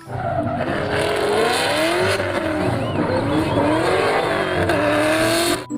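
Race car engine sound, revving with its pitch sweeping up and down, then cutting off suddenly near the end.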